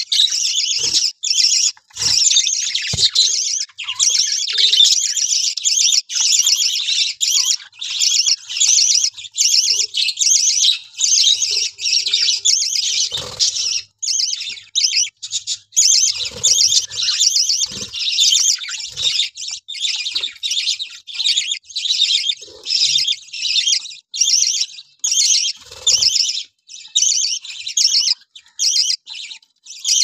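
A flock of budgerigars chattering and chirping almost without a break, a dense high twittering, with a few soft thumps and wing flutters now and then.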